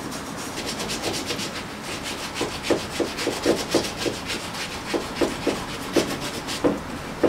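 A cloth wiping back and forth over a leather sandal's insole and straps in quick strokes, about three or four a second, growing firmer about two and a half seconds in.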